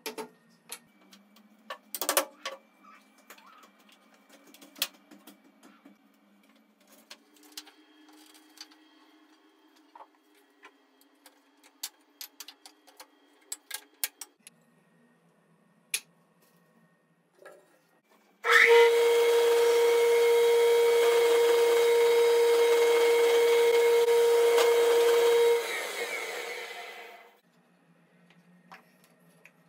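Pine pieces handled and set down on a workbench with scattered light knocks and clicks, then an electric power tool starts suddenly and runs steadily with a high hum for about seven seconds before switching off and winding down.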